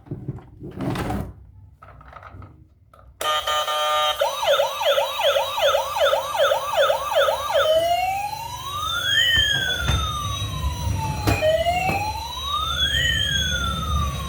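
A toy vehicle's electronic siren switches on suddenly about three seconds in, after a few quiet handling knocks. It first gives a quick yelping warble, then a slower wail that rises and falls, with a few sharp clicks over it.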